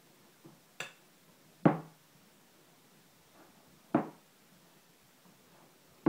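A glass mixing bowl knocking a few times as bread dough is worked roughly by hand inside it: four sharp knocks spaced irregularly, the second the loudest.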